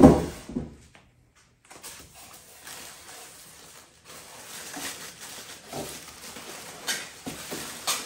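A dull knock as a polystyrene packing block is set down on a cardboard box. Then come rustling, scraping and creaking of polystyrene packing and a plastic bag as an espresso machine is worked out of its packaging, with a couple of sharp clicks near the end.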